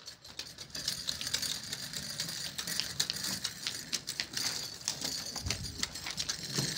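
Child's small red tricycle rattling and clicking over rough concrete as it is pushed along, a fast, irregular clatter.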